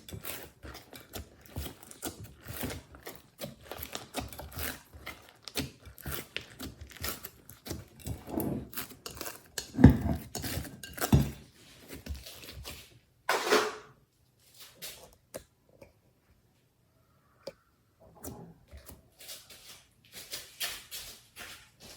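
Glossy slime being squished and pressed by hand: rapid sticky clicks and crackles, with a few louder squelches about ten seconds in. It goes mostly quiet for a few seconds after that, then the clicking starts again.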